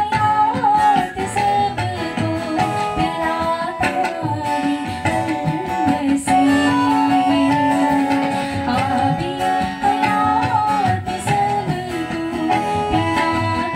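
A woman singing a slow melody into a microphone, accompanied by acoustic guitar.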